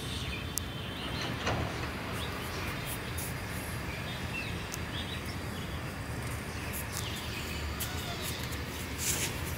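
Steady outdoor background noise with a low rumble, and faint bird chirps here and there.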